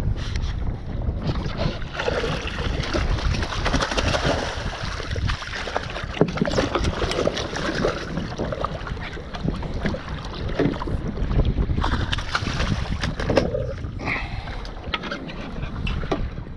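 Wind buffeting the microphone and choppy sea water slapping and splashing against a kayak hull, with many small scattered knocks and clicks.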